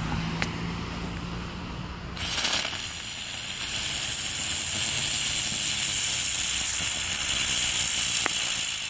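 Ground bloom flower firework going off, a loud steady hiss of spraying sparks that starts suddenly about two seconds in, once the fuse has burnt down.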